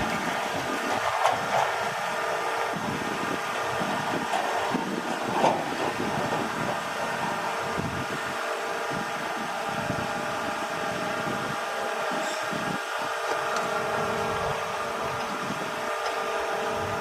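Construction machine engine running steadily, with a couple of brief louder knocks in the first six seconds.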